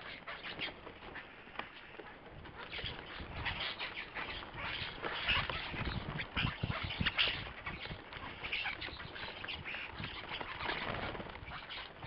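Flock of common starlings, many of them juveniles, chattering and squawking harshly at a bird table, with wing flutters and pecking taps among the calls. The din builds and is loudest about halfway through, with heavy wingbeat thumps as more birds land.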